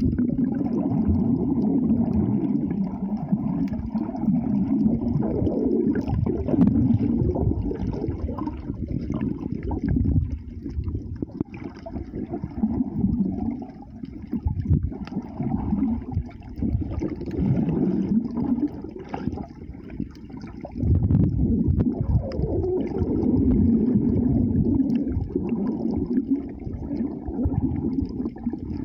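Muffled water sloshing and gurgling around a waterproof phone's microphone held underwater in the sea, swelling and fading every few seconds.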